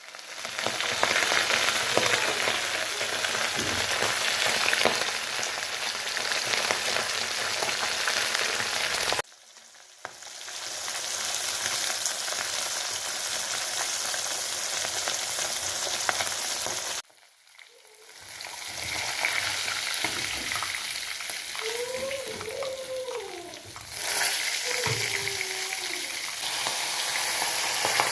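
Fish pakoras deep-frying in hot oil, a steady crackling sizzle that cuts out briefly twice.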